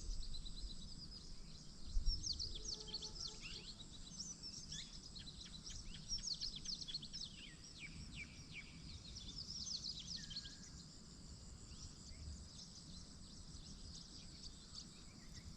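Songbirds chirping and singing in quick, high, down-sweeping notes, busiest in the first half and thinning out later, over a faint low rumble.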